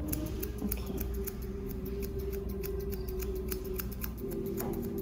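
Steel grooming shears snipping a dog's chin hair in quick, short strokes, several snips a second.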